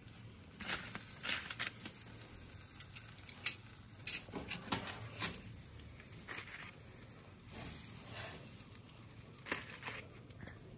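Aluminium foil crinkling in short, irregular crackles as foil-wrapped bananas are picked up off a kettle grill with metal tongs.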